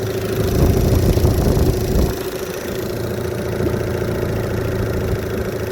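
Evinrude E-TEC 15 hp H.O. two-stroke outboard idling steadily, a little louder in the first two seconds. The engine is running hot at idle, and the owner suspects the thermostat is not opening.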